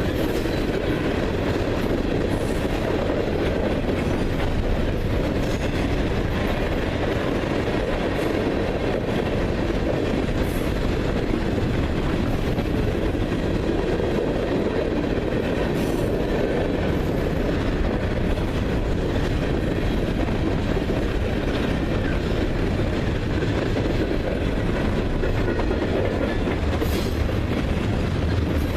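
Freight train cars rolling past on steel rail, a steady, even noise of wheels on track with a few sharp clicks from the wheels.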